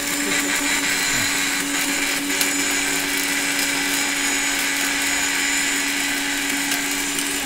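Silvercrest countertop blender running at full speed: a steady motor hum under a dense whirring hiss as it grinds pieces of a glass soft-drink bottle into powder.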